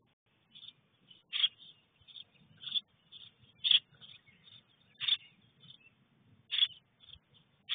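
Nestlings in a nest box calling repeatedly: short, sharp, high calls about every second and a half, with softer chirps between them.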